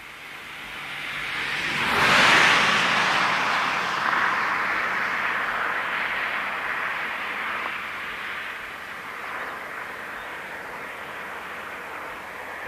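KiHa 40 series diesel railcar's engine running under power as it pulls away. It builds to its loudest about two seconds in, then eases off to a steadier, quieter run.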